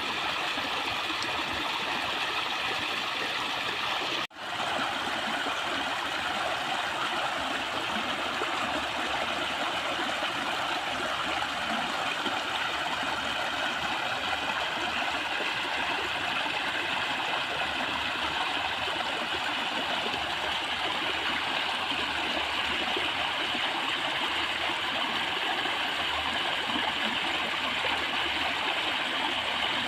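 Steady rush of flowing water, even and unbroken, cutting out for a split second about four seconds in.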